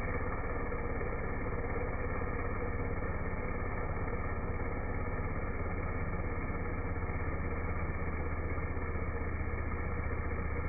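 Stihl 023 two-stroke chainsaw cutting through a log, its engine and chain sound slowed down by slow-motion playback into a steady, deep drone.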